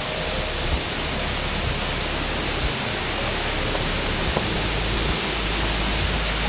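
Waterfall water rushing in a steady, loud roar with no change, with a few faint low bumps.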